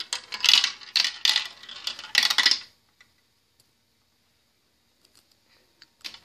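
Marbles clattering through a plastic marble run, a dense rattle of clicks that stops about two and a half seconds in. A single click follows near the end.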